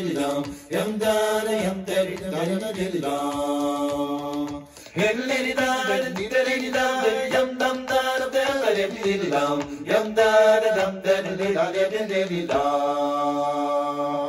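Music of wordless, chant-like vocal tones: long held notes that slide from one pitch to the next, with a brief break about five seconds in.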